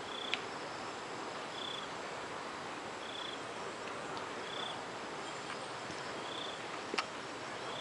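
A calling insect: a short high chirp repeats about every second and a half over a steady hiss, with two sharp clicks, one just after the start and one near the end.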